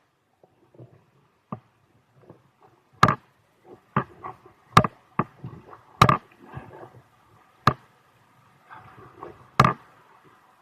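A series of sharp, irregular knocks, about six loud ones a second or so apart, with fainter taps and rustling between them.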